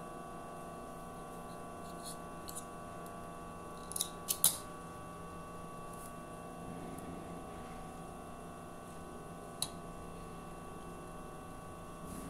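Industrial sewing machine's motor humming steadily while the needle is stopped, with a few sharp clicks: a quick cluster about four seconds in and a single one near ten seconds.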